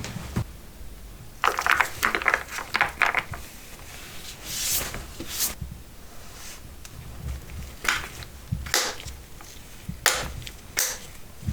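Things being handled during an unboxing: crinkling and rubbing with a quick cluster of sharp clicks about a second and a half in, a brief rustle near the middle, and a few single clicks later.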